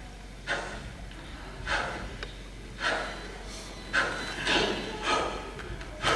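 Sharp breathy exhalations or gasps in a steady rhythm, about one a second, coming about twice as fast in the second half.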